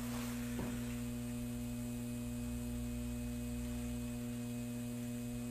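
Steady electrical mains hum: a low drone with several evenly spaced higher tones above it, over a faint hiss.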